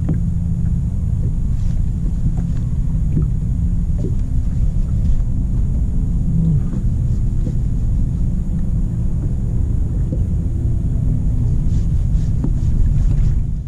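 Boat motor running steadily, a low rumble with a faint hum in it.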